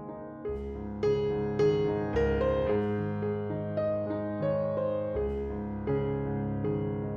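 Slow, relaxing piano music: struck piano or electric-piano notes about every half second over held low bass notes.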